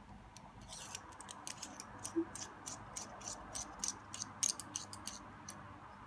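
Small metal clicks and ticks, irregular, a few a second, from the parts of an all-metal Staedtler 925 25 lead holder being worked by hand as its brass lead container is fitted back into the barrel.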